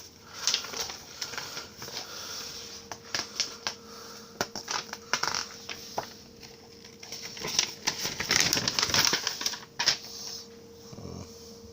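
Paper and plastic packaging being handled, rustling and crinkling with many light clicks and taps, busiest about two-thirds of the way through, over a faint steady hum.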